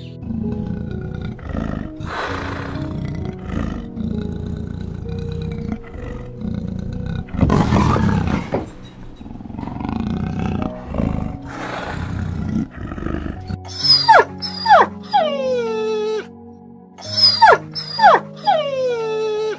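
Animal growling and roaring, loudest about eight seconds in, over soft background music. From about fourteen seconds, a dog whimpering: a run of high whines, each sliding steeply downward.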